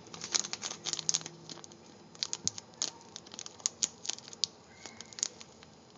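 Plastic Ziploc bag crinkling and crackling in irregular sharp bursts as it is folded and creased by hand.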